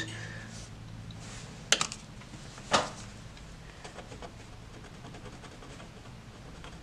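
Quiet handling of art tools on a sketchbook page: a paintbrush and then a Derwent Graphik Line Painter paint pen working on paper, with two sharp clicks about two and three seconds in and faint light taps after.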